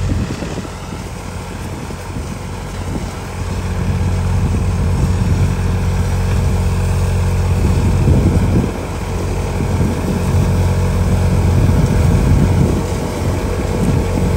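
Swaraj tractor's diesel engine running steadily under load, driving a thresher through the PTO while mung bean plants are fed in, with the thresher drum whirring. It is a loud, even drone that dips briefly about a second in and again past the middle.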